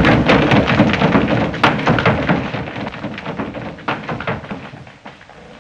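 Thunder rumbling with sharp crackles, loud at first and fading away steadily.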